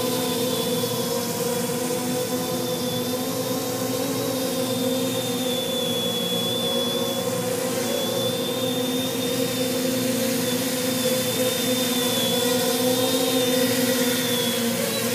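Custom-frame quadcopter's four electric motors and propellers running in a low hover, a steady buzzing whine with a high tone on top. The pitch wavers slightly as the quad holds position and corrects, and the sound gets a little louder near the end.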